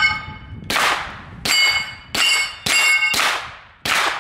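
Six gunshots from a Hi-Point 10mm carbine, fired at an uneven pace of about two a second. Each shot is followed by the metallic ring of the steel target being hit, at the same pitches every time.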